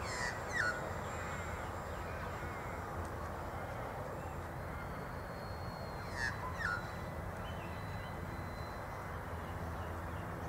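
A bird gives two pairs of short, harsh, downward-sliding calls, one right at the start and one about six seconds in. Under them is a faint steady hum from the radio-controlled P-51 Mustang model flying overhead, with outdoor background noise.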